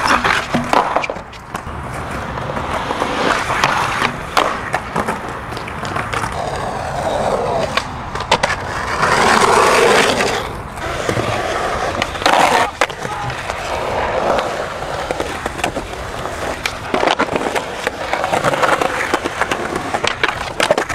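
Skateboard wheels rolling on concrete, with trucks grinding along a concrete ledge and sharp clacks of the board popping and landing several times.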